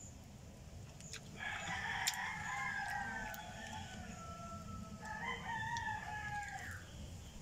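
A rooster crowing twice, each crow a drawn-out call of about two seconds.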